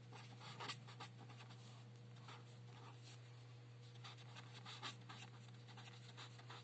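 Faint scratching of a felt-tip marker on paper as words are written by hand, in many short irregular strokes, over a steady low hum.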